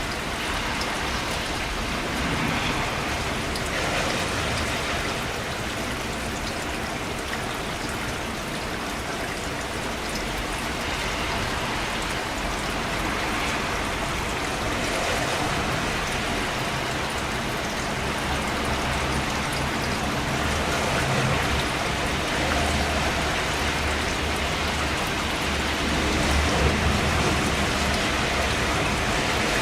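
Steady rain falling and pattering on surfaces, swelling gently every few seconds, with a low rumble building up in the second half.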